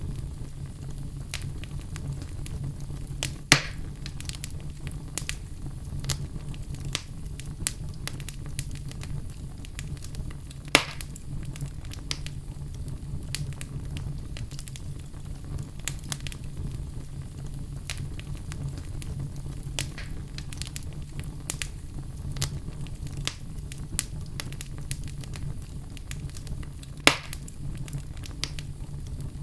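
Wood fire burning in a fireplace: a steady low rumble with frequent small crackles and a few louder pops, the loudest about three seconds in, near eleven seconds and near the end.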